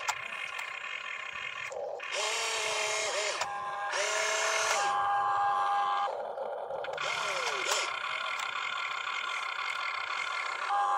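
RC excavator's small electric motors and gearboxes whining as the boom lifts and the cab swings, in spells of a second or so that start and stop sharply, the pitch dipping and rising as the motors speed up and slow down.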